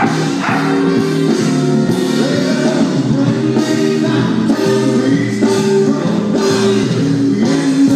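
Loud background music with singing, guitar and a steady beat.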